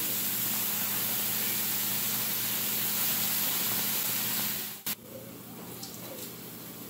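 Marinated shrimp sizzling on a hot electric griddle: a steady hiss that drops off sharply with a click about five seconds in, after which the sizzle is quieter.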